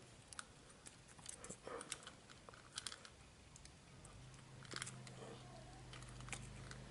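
Faint scattered clicks and taps of a plastic smartphone holder clamp and a metal mini tripod being handled and fitted together. A low steady hum comes in about four seconds in.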